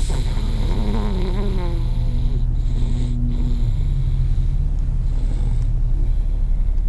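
A young child snoring loudly: a steady low rumble, with a short higher, wavering sound mixed in about a second in.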